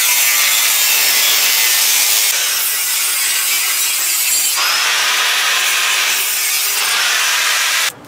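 Angle grinder's cutting disc slicing through a metal bicycle frame tube: a steady grinding hiss that shifts in tone a couple of times and stops abruptly just before the end.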